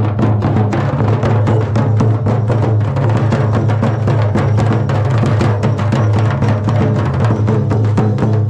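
Traditional Jharkhandi folk drumming: mandar barrel drums and a large nagara kettle drum, beaten with sticks and hands, in a fast, dense, unbroken rhythm. A steady low hum runs beneath the strokes.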